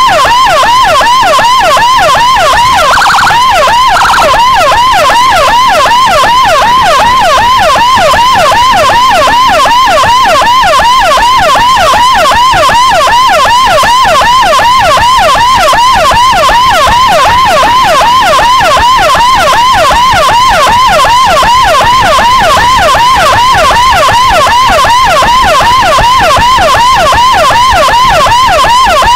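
Electronic siren (CJB 200E) on an ambulance-escort motorcycle, sounding continuously in a fast yelp, several rising-and-falling sweeps a second. Two short extra blasts sound about three and four seconds in.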